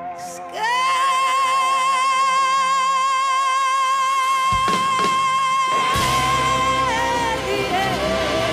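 Live blues-rock band: a high note slides up and is held with vibrato for about six seconds, then drops away. Drum hits come in near the end.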